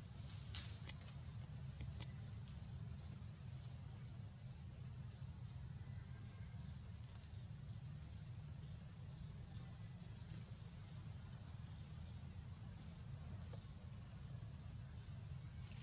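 Steady high-pitched insect chorus buzzing in two pitch bands over a low background rumble, with a few faint clicks in the first two seconds.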